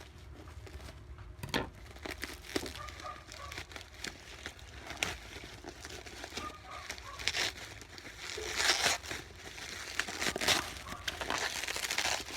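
Plastic and cardboard packaging crinkling and rustling as a thermal printer is unboxed, with scattered clicks and knocks; the handling gets busier and louder about two-thirds of the way through.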